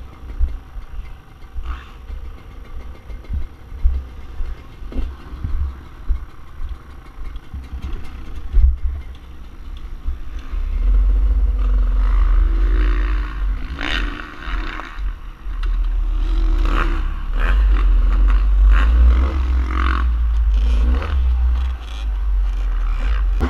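Beta 300RR two-stroke dirt bike engine revving up and down while being ridden, over a heavy low rumble with scattered clattering knocks. The rumble becomes louder and steadier about halfway through.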